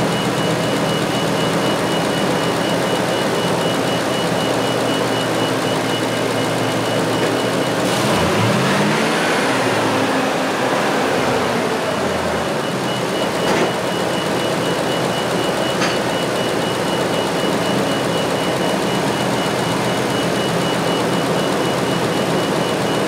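Ford F350 pickup engine idling, then revved once about eight seconds in, rising in pitch and settling back to idle a few seconds later, as part of an alternator output test. A thin, steady high-pitched beeping tone runs alongside, breaking off during the rev.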